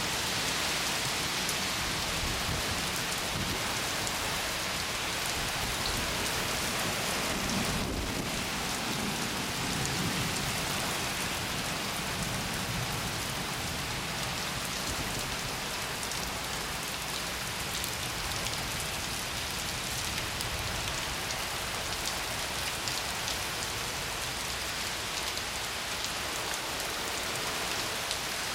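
Steady rain falling in a thunderstorm, with a low rumble of thunder swelling about eight seconds in and fading over the next few seconds.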